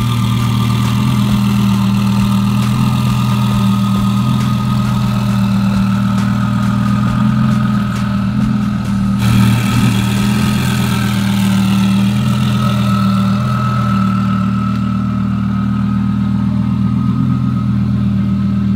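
Twin-turbocharged Audi R8's 5.2-litre V10 idling steadily after a cold start, with a steady high whine above the low engine note.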